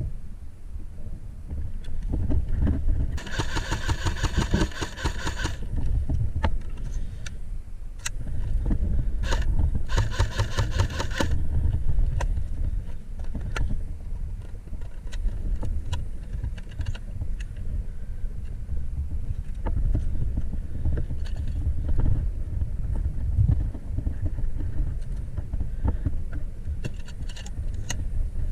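Cyma AK airsoft electric rifle firing two full-auto bursts, one about two seconds long a few seconds in and a shorter one about ten seconds in, with a steady low rumble of wind and handling noise and scattered single clicks throughout.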